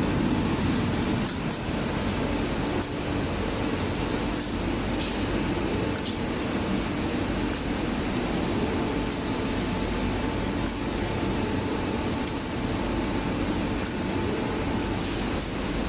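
Automatic spray-painting machine running with a steady mechanical hum, with faint clicks every second or two.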